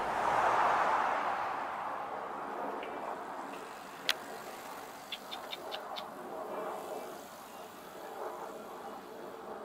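A vehicle passing on a nearby road, its rushing noise fading away over the first couple of seconds. About four seconds in comes a single sharp click, then a quick run of about six short high ticks.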